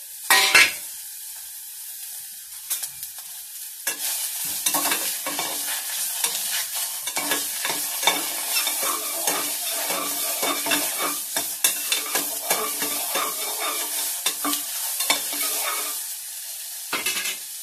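Chopped onion, garlic, green chilli and tomato sizzling in hot oil in an aluminium pressure cooker. A sharp knock comes about half a second in. From about four seconds in, a metal spatula stirs them, scraping and clinking against the pot.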